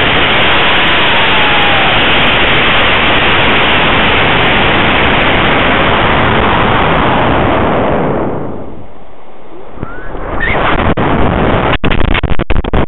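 Loud, steady rushing of air over a high-power rocket's onboard camera as it climbs on its Cesaroni H143 motor, fading about eight seconds in as the rocket slows near apogee. From about ten seconds it turns to gusty, choppy wind buffeting with a few sharp knocks near the end, around the time of ejection.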